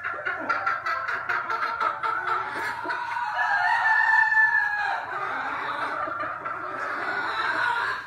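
Gamefowl rooster crowing, one long held crow about halfway through, over clucking from other chickens.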